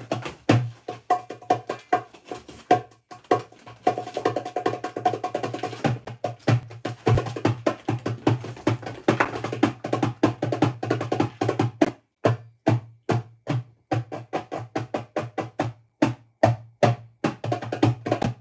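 Drums being played: a dense run of fast strikes, which about two-thirds of the way through gives way to separate, evenly spaced hits.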